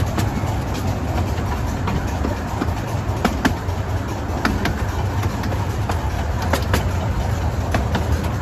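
Miniature railway carriage running along the track: a steady low rumble of the wheels with scattered sharp clicks and clacks from the rail joints.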